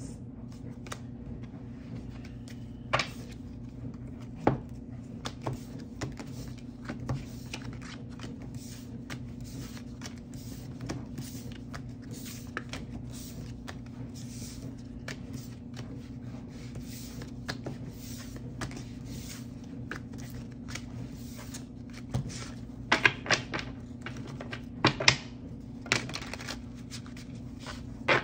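Tarot cards being handled: scattered sharp clicks and taps as cards are shuffled and laid down, with a quick run of louder snaps near the end, over a steady low hum.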